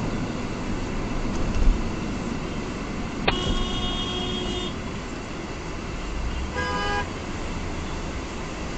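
Car horns over steady road and engine noise heard from inside a moving car: one horn blast about three seconds in that lasts about a second and a half, then a shorter, higher-pitched horn toot a few seconds later. A low thump comes just before two seconds in.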